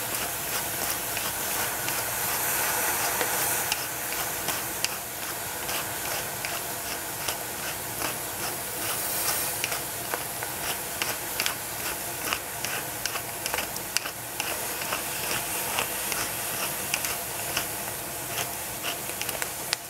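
Hand pepper grinder twisted over a pot, its grinding mechanism giving a long run of sharp clicks as it cracks peppercorns, over a steady hiss from the pot cooking on the heat.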